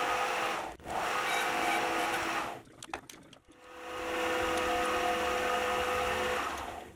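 Metal lathe spinning a small knurled metal knob with a steady whine, first while it is faced with a turning tool and then while a small drill bit is fed in from the tailstock. The sound fades out for about a second in the middle, with a few clicks, then the spindle comes back up to speed.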